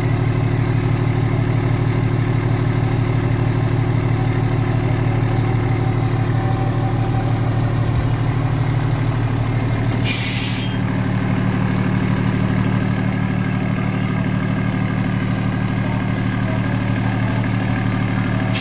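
Fire engine's diesel engine idling steadily. About halfway through, a short hiss of air is released from the truck's air brake system.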